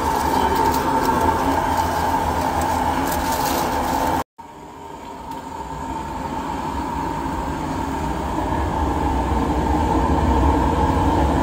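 Steady loud kitchen machinery noise, a low rumble with a constant hum, cut off abruptly about four seconds in and then fading back up.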